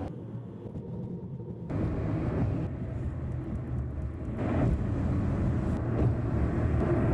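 Car running on the road: a steady low engine hum with tyre and road noise, stepping up about two seconds in and growing slowly louder.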